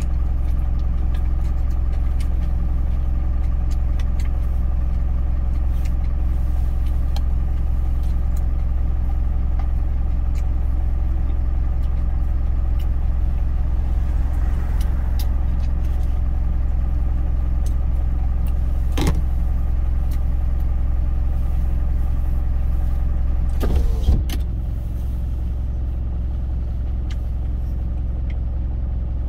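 Truck engine idling steadily, heard from inside the cab as a low, even hum. Light clicks of chopsticks against a stainless-steel lunch container come and go, and a knock near the end is followed by a slightly quieter hum.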